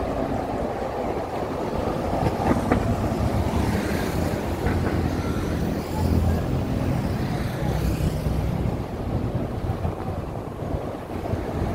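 City street traffic going past, a steady low rumble of engines and tyres that swells about six seconds in, with wind buffeting the microphone.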